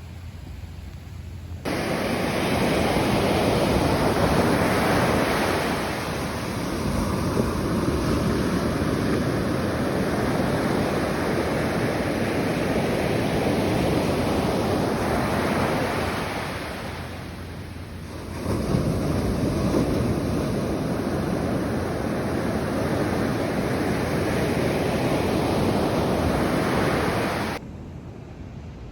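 Ocean surf: waves breaking and washing up a beach, a steady wash of noise that swells and eases, with a lull a little past the middle. Wind rumbles on the microphone. The sound comes in suddenly a couple of seconds in and cuts off suddenly near the end.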